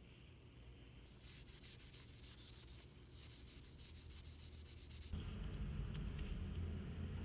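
Rapid back-and-forth rubbing strokes, like sanding or scrubbing a part by hand, in two runs separated by a short break. A low steady hum begins about five seconds in.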